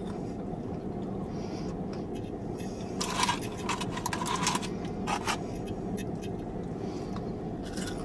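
Fingers rustling through a paper-lined cardboard food box to pick out a cheese curd: a scraping rustle about three seconds in that lasts over a second, and another short one about five seconds in. A steady low hum runs underneath.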